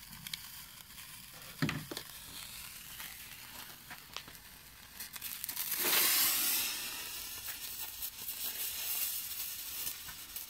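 Thermite burning: a hiss that swells to its loudest about six seconds in, then dies down with scattered crackles. There is a single thump a little under two seconds in.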